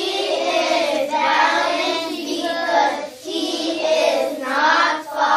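A class of young children chanting an answer together in a sing-song chorus, with short pauses about three seconds in and again near the end.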